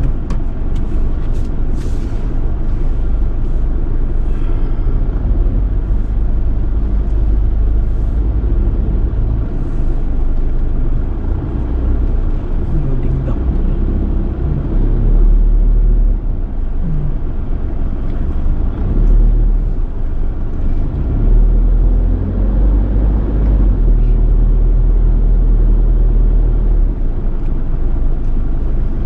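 Car driving in city traffic, heard from inside the cabin: steady low engine and road rumble that swells a few times.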